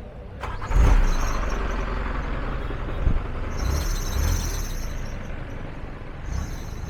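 Road traffic going past close by: a vehicle's engine and tyre noise that rises sharply about a second in and stays steady after.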